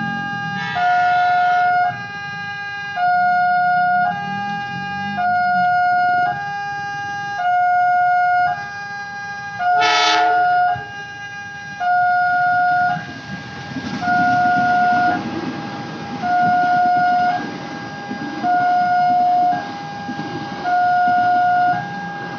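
Railway level-crossing alarm sounding a steady two-tone ding-dong, a higher and a lower tone alternating about once a second, as a diesel train approaches. There is a short pitched blast about ten seconds in, and from about thirteen seconds the low rumble of the passing locomotive and carriages rises beneath the alarm.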